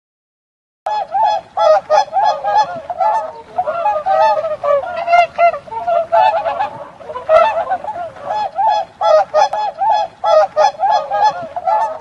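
Swans honking: many short, overlapping honks, several a second, starting about a second in.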